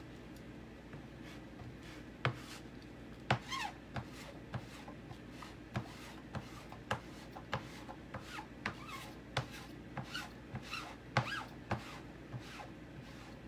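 Rubber squeegee scraping white chalk paste across a mesh silkscreen transfer on a board, in repeated short, uneven strokes about one or two a second.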